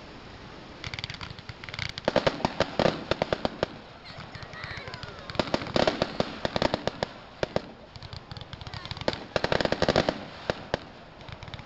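Fireworks going off in three rapid bursts of crackling pops, each lasting a second or two: about a second in, around five and a half seconds in, and again around nine seconds in.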